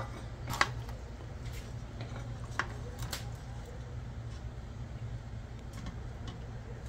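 A few short, sharp clicks of a spatula and tongs knocking against a metal cooking pot as a sauce-coated fried fish is lifted out, the loudest about half a second in, over a steady low hum.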